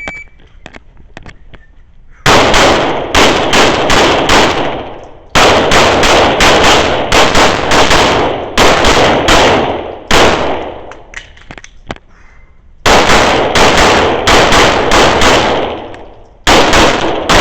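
A short electronic shot-timer beep right at the start. Then, about two seconds in, rapid pistol fire begins: strings of shots fired a few per second, with brief pauses between the strings.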